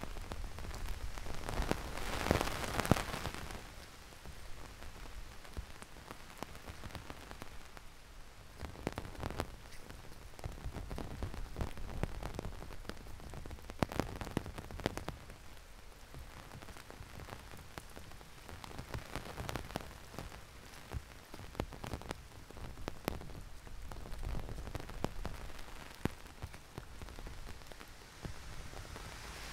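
Heavy rain falling, a steady hiss dotted with many sharp ticks of close drops striking. A louder rushing swell comes about two seconds in.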